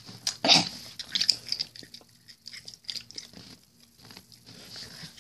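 Someone chewing cheese curds close to the microphone: a cluster of short bites and chews in the first two seconds, then quieter intermittent chewing.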